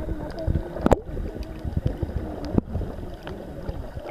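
Underwater sound picked up by a submerged camera: a muffled noise bed with a few sharp clicks and a faint wavering hum that comes and goes.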